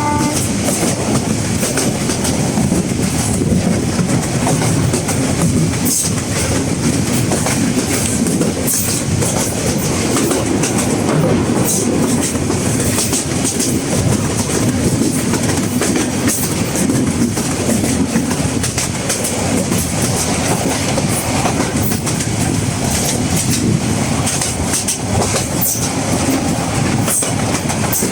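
Moving train: a steady rumble of the wheels running on the rails, with occasional brief sharp ticks.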